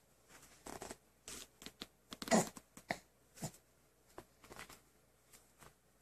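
Irregular soft knocks, taps and rustles of a baby handling a small plastic toy cube on carpet, the loudest about two and a half seconds in.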